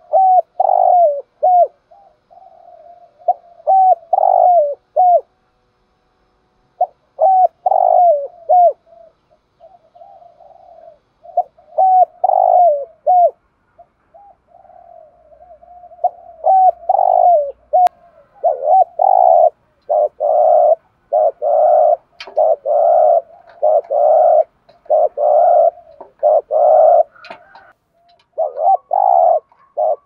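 Spotted dove cooing repeatedly: groups of short, downward-curving coo notes, then, from a little past halfway, a faster, steadier run of coos about one a second.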